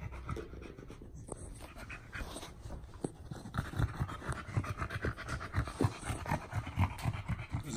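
Pit bull panting quickly and rhythmically while mouthing and chewing a giant tennis-ball rope toy; the panting grows louder about halfway through.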